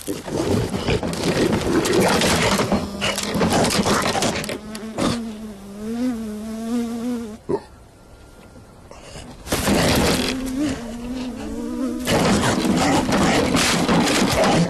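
Cartoon sound effect of a swarm of insects buzzing: a droning hum that wavers in pitch, dropping away for a couple of seconds past the middle before starting up again.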